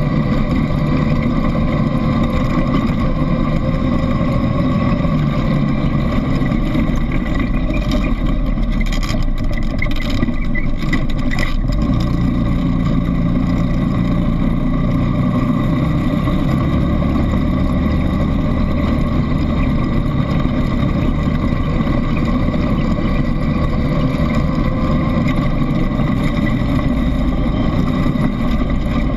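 ATV engine running steadily while riding along a dirt and gravel track, heard from the handlebars, with a run of knocks and rattles between about eight and twelve seconds in.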